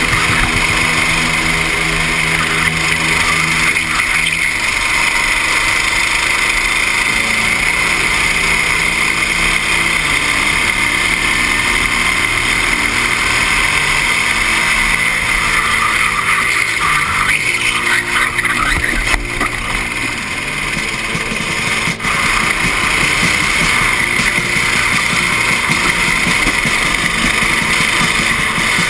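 Go-kart engine running steadily at racing speed, heard from on board, with a brief dip in level about twenty seconds in.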